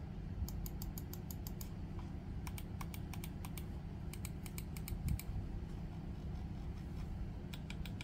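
VGN MOBA wireless gaming mouse clicking in three quick runs of even, sharp clicks, about six a second, as its buttons are tried out.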